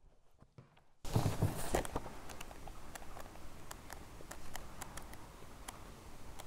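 Near silence that cuts abruptly, about a second in, to a steady room noise with a scattering of light clicks and knocks at irregular intervals.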